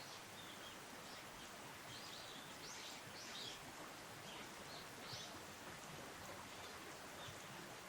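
Faint, scattered short high bird calls, a dozen or so brief chirps, over a steady outdoor background hiss.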